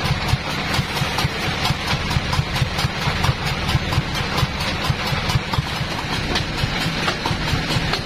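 Band sawmill's engine running steadily at idle, with a quick, even pulse; the blade is not yet cutting.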